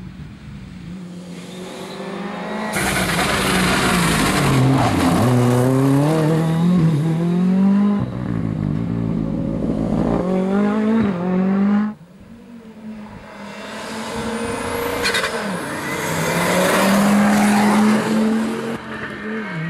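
Rally cars at full throttle on a stage, their engines revving hard, the note climbing and then dropping back with each gear change as the cars approach and pass. The sound drops off sharply about twelve seconds in, and a second car builds up to full throttle.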